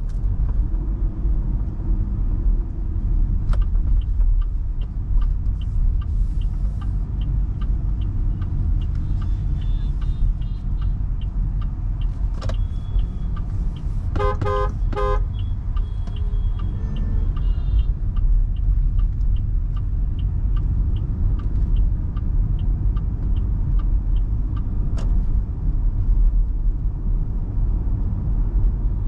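Inside the cabin of an MG Hector Plus SUV driving in traffic: a steady low road rumble, with the turn-signal ticking about twice a second through the first half. About halfway through, a car horn sounds in several short quick toots.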